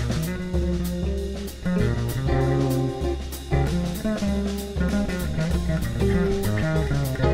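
Jazz fusion trio recording: guitar playing melodic lines over electric bass and a drum kit, with evenly spaced cymbal strokes keeping time.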